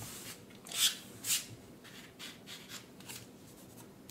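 Game cards being handled, sliding and rustling against each other and the table: two louder swishes about a second in, then a run of softer ones.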